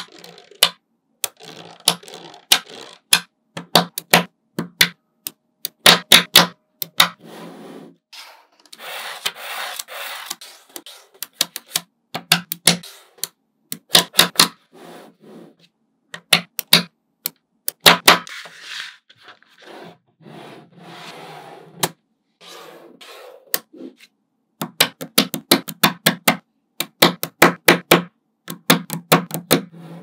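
Small magnetic balls clicking and snapping together in quick runs of sharp clicks, with stretches of the balls rolling and rubbing against each other in between.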